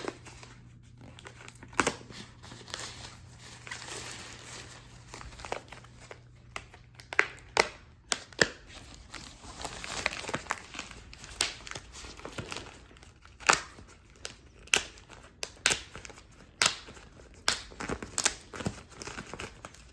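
Plastic wrapping on a compressed mattress crinkling and tearing as it is cut open and pulled away, with many sharp, irregular crackles.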